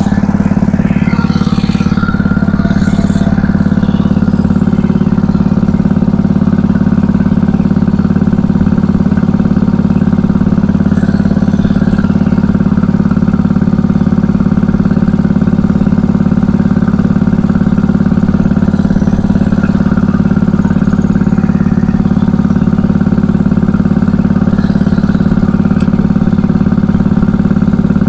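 An engine aboard a small fishing boat running steadily at an unchanging speed, its even hum loudest in the low range.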